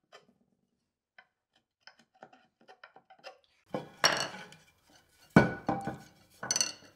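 A few light clicks from a chisel paring at the baseline of a mahogany dovetail, then clattering knocks and clinks as chisels and the board are set down and handled on a wooden workbench, with one sharp knock about five and a half seconds in.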